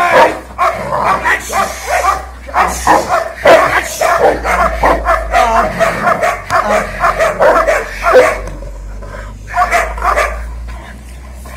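Muzzled shepherd-type dog barking and yelping in quick succession as it attacks a padded decoy during muzzle-attack training; the calls come thick and fast, then thin out about eight seconds in.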